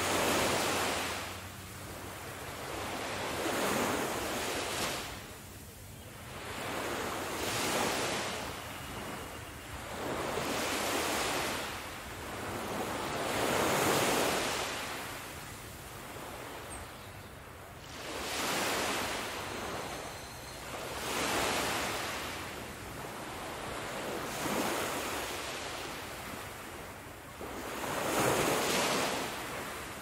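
Sea waves washing onto a beach, a rush of surf that swells and fades about every three to four seconds.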